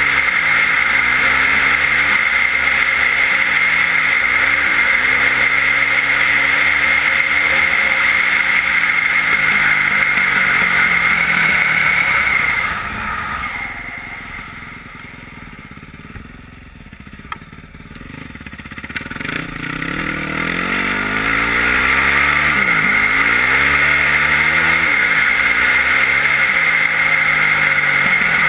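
Yamaha WR450F single-cylinder four-stroke enduro engine with an Akrapovič exhaust, heard from a camera on the bike, running under way with revs rising and falling. About halfway through the engine sound drops away for several seconds, then builds back up.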